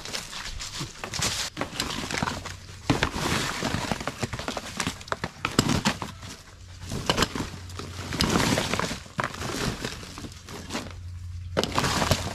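A metal snake hook prodding and dragging through dry coconut husks and a woven plastic sack: irregular crackling, rustling and sharp knocks as the husks are shifted about.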